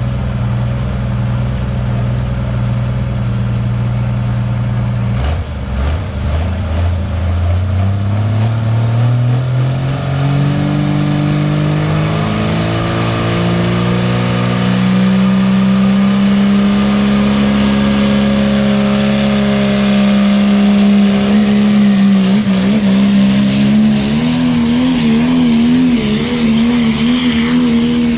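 Diesel pulling pickup truck's engine idling at the start of a pull, then winding up over about ten seconds to a loud, steady high rev, which wavers near the end as the truck pulls the sled.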